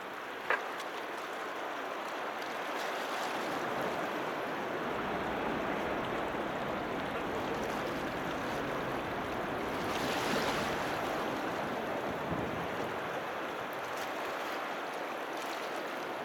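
Steady wash of harbour water with wind noise, swelling briefly about ten seconds in. A short sharp squeak comes about half a second in.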